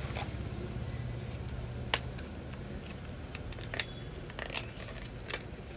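Hands handling an opened product package and the vibrating ring inside it: small clicks and rustles, with one sharper click about two seconds in, over a steady low hum.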